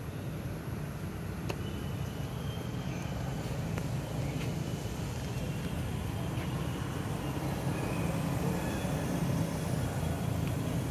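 Steady low rumble like a running motor or passing traffic, with a few faint, short high-pitched chirps over it.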